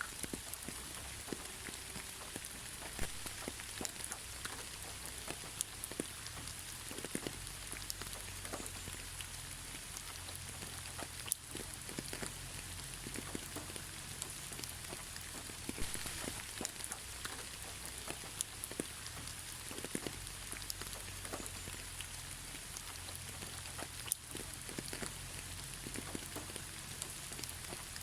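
Steady gentle rain without thunder: an even hiss with many individual drops pattering on surfaces.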